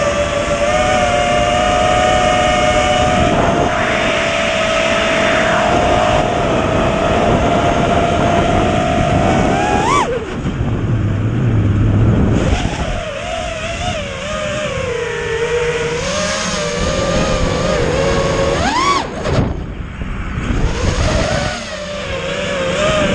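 FPV racing quadcopter's motors and propellers whining at a steady, wavering pitch, with a sharp rising throttle punch about ten seconds in and another near the end, each followed by a drop to a lower whine. A low rushing noise, like wind, lies underneath.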